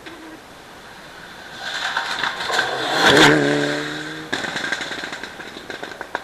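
A rally car approaching at speed and passing close by, its engine note dropping in pitch as it goes past. Just after, the engine cuts back sharply and a run of sharp crackles follows as it pulls away.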